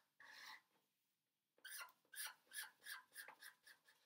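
Felt-tip marker drawing on chart paper pinned to a wall: a quick run of short, faint scratchy strokes.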